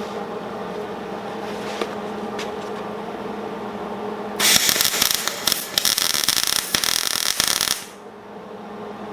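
Electric arc welding a tack on a steel gate hinge: a steady hum, then about three seconds of loud, crackling arc that stops abruptly. The welder judges the tack needs a little more heat.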